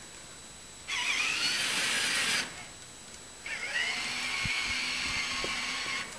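Robotic snow shovel's motors whirring in two runs, a short one about a second in and a longer one from about halfway, each with a whine that shifts in pitch as the motor speeds up and slows.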